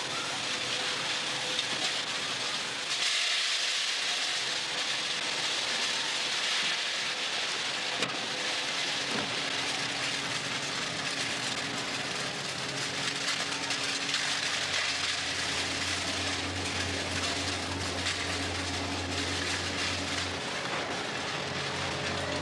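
Steady noise of factory machinery on a fish-canning line: an even hiss with a low hum that comes in about two thirds of the way through.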